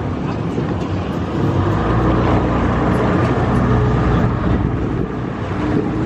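A motorboat's engine running under way with a steady hum, getting louder about a second and a half in, over the rush of wind and water.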